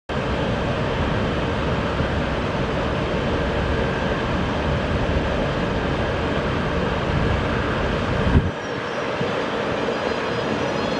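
DB Class 102 (Škoda 109E) electric locomotive rolling slowly into a station at the head of a regional train: a steady low rumble with a faint whine. About eight seconds in there is a short knock, and the low rumble drops away sharply.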